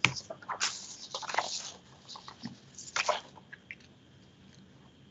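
Irregular soft clicks and crackling noises: a sharp click right at the start, a cluster of crackles in the next second or two, and another burst about three seconds in, then only faint hiss.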